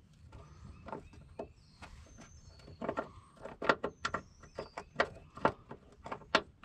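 Irregular clicks and knocks as a Chevy S10's battery hold-down and rubber block are worked loose and the battery is handled, getting busier about halfway through. Faint bird chirps can be heard high in the background.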